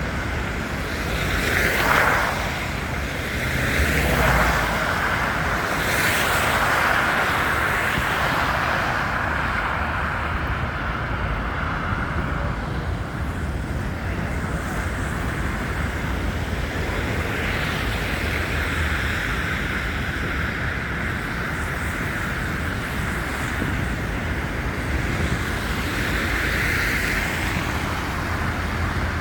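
Steady city traffic noise: a continuous hiss of tyres and engines going by, with a few louder swells in the first several seconds as vehicles pass.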